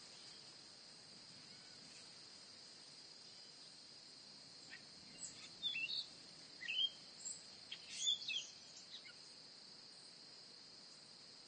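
Faint outdoor nature ambience: a steady, high-pitched insect drone throughout, with a flurry of short bird chirps midway.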